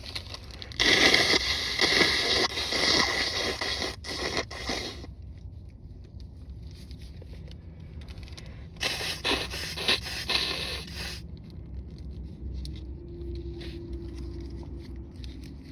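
Two stretches of harsh, rough scraping and rustling close to the microphone, the first about four seconds long starting a second in, the second about two and a half seconds long a little past the middle.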